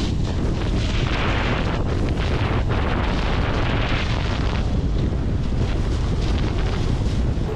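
Wind rushing over the microphone and a snowboard scraping over firm, hard-packed snow during a fast run, a loud and steady rush.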